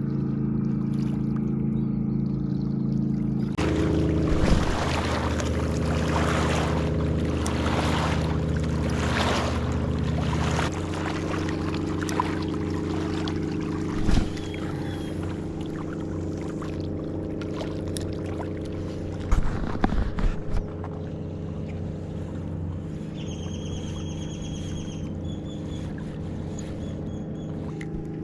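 A motorboat engine running steadily on the river, its pitch shifting a few seconds in and again about eleven seconds in, with a hissing rush of water or wind between. A few brief high trills near the end.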